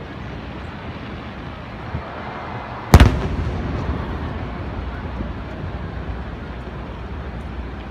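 An aerial fireworks shell bursting with one loud boom about three seconds in, its rumble trailing off over the next couple of seconds; a faint pop comes about a second before it.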